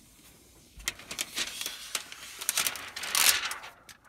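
Protective plastic film being peeled off a new car's dashboard display screen, crackling and crinkling in an irregular run of sharp crackles. It starts about a second in and is loudest around three seconds in.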